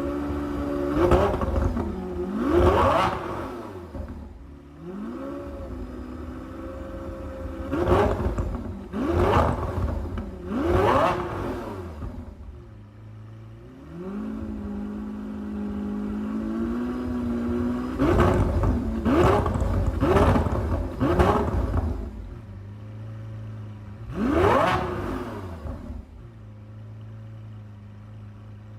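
Lamborghini Aventador SVJ's 6.5-litre V12 revved hard from idle in quick blips, about ten in all, in clusters of one to four. Each rev climbs and drops fast, with the engine idling between the clusters.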